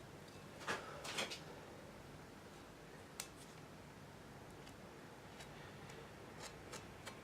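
Faint, scattered handling sounds of small hand-work with filler and tools: two short scrapes about a second in, a sharp click near three seconds, then a few light ticks.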